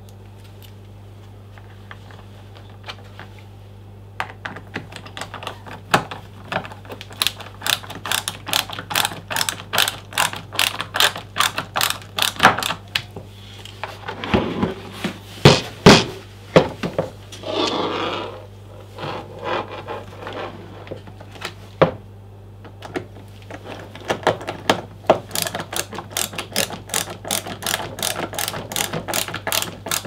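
Ratcheting screwdriver clicking in quick runs, about four clicks a second, as screws are driven into the leaf blower's plastic housing. Around the middle, a few louder plastic knocks and a brief scrape.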